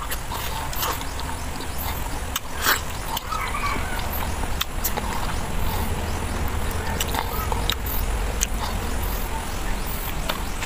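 Mouth sounds of eating a ripe mango: sharp wet clicks and smacks of lips and tongue on the soft flesh, scattered irregularly, over a steady low rumble.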